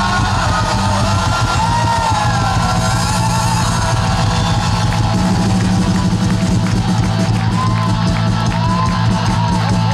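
Live rock band with electric guitars, bass and drum kit playing loud through a PA, with a male singer's line wavering over it.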